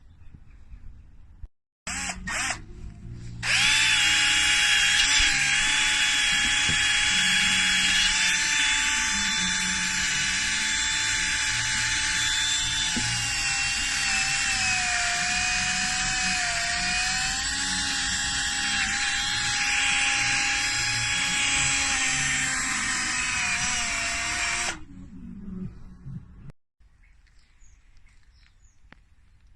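Electric power drill running steadily for about twenty seconds. Its whine dips slightly in pitch midway and recovers, as if under load. It stops abruptly near the end.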